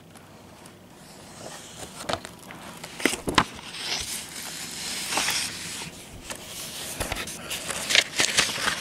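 Pages of a paper service manual being leafed through and the book being shifted, with rustling paper and scattered light knocks and clicks.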